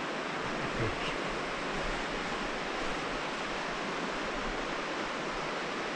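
Abisko River rushing: a steady wash of flowing water.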